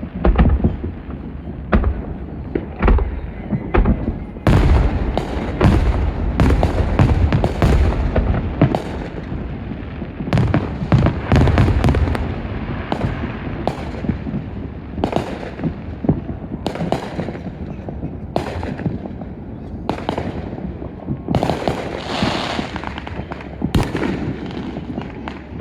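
Fireworks going off: a rapid string of sharp bangs and deep booms, densest between about four and twelve seconds in, then carrying on more spaced out.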